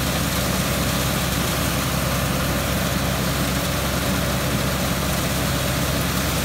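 New Holland 355 grinder-mixer running off a tractor's PTO while grinding feed: a steady, even machine drone with a dense hiss over it.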